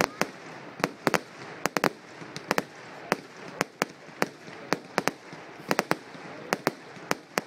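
Fireworks display: a rapid, irregular string of sharp bangs, about three a second, over a steady background hiss.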